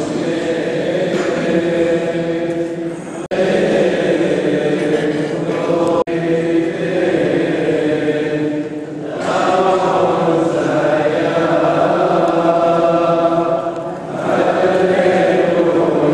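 Liturgical chant sung by several voices together in long held phrases. The sound cuts out for an instant twice a few seconds in.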